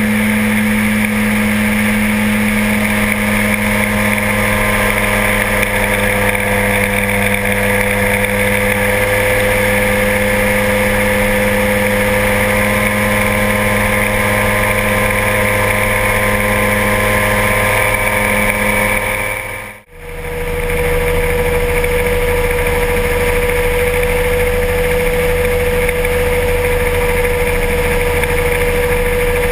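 Kolb ultralight aircraft's engine running steadily in flight, a constant drone. About twenty seconds in it drops out for a moment and returns at a slightly different pitch.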